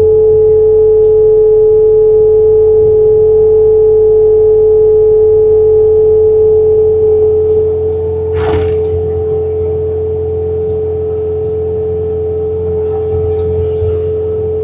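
Bobcat T66 track loader at full throttle driving its snowblower attachment: a loud, steady high whine over the low drone of the engine, easing slightly just past halfway.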